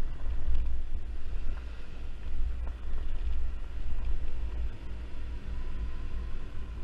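Yamaha Zuma 50cc scooter being ridden at steady speed, its small engine running under heavy wind buffeting on the microphone.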